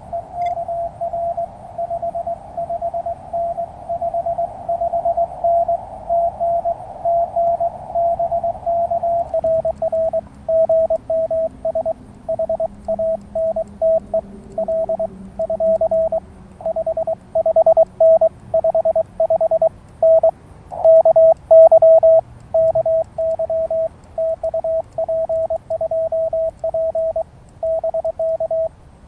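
Morse code (CW) heard from an amateur radio transceiver: a single steady-pitched tone keyed on and off in dots and dashes. About nine seconds in, the tone drops slightly in pitch and the keyed signal becomes louder and uneven in strength.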